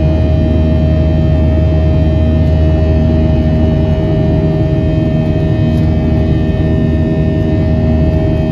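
Airliner's turbofan jet engines during the climb after take-off, heard from inside the passenger cabin: a loud, steady low drone with a constant tone running through it.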